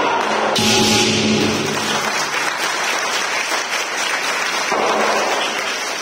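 Lion dance percussion of drum, cymbals and gong, with a cymbal crash about half a second in and ringing that dies away. Audience applause then takes over and slowly fades.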